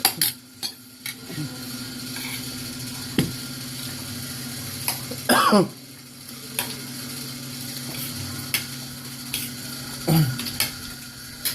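Mealtime eating sounds: scattered light clicks and knocks of utensils against dishes, with a short falling sound from someone's mouth about five seconds in, over a steady low hum.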